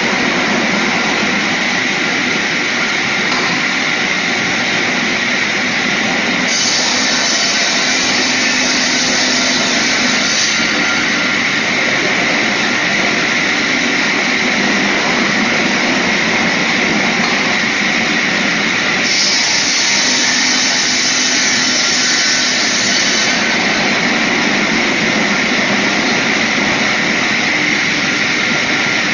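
Small sliding table saw running steadily, with a harsher, hissier sound added for about four seconds twice: about six and a half seconds in and again about nineteen seconds in.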